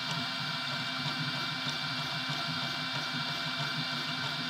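FDM 3D printer printing. Steady whining tones and a pulsing low hum come from its motors as the print head works over a small part.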